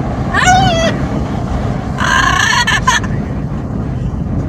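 Amazon parrot giving two loud, wavering calls, a short one about half a second in and a longer one around two seconds in, over the steady low rumble of a moving car and wind.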